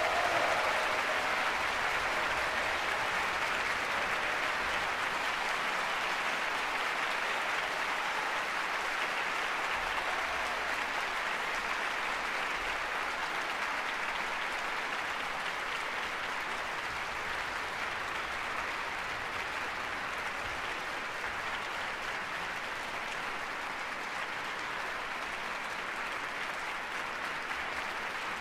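Concert-hall audience applauding: dense, steady clapping that starts as the orchestral music ends and eases off slightly in loudness toward the end.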